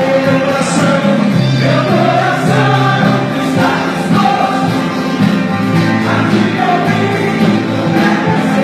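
Live Christian worship music: a group of voices singing together over instrumental backing, with held, sustained notes.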